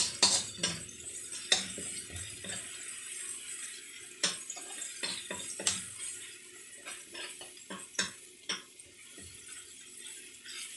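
Metal spoon scraping and knocking against a metal wok at irregular intervals as chopped onions are stirred, over a steady sizzle of the onions sautéing in oil.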